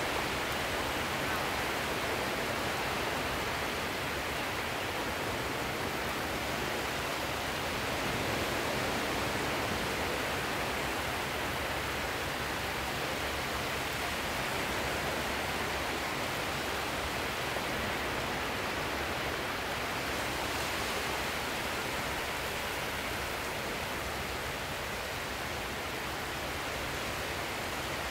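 Sea surf: a steady, continuous rushing wash of waves, rising and falling only slightly and slowly.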